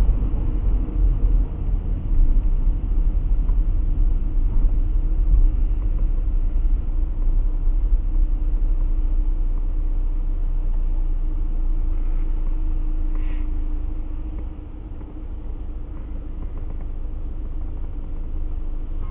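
Low rumble of a car's road and engine noise heard through a dashcam inside the cabin. It eases off as the car slows to a stop, then settles to a steadier, quieter hum.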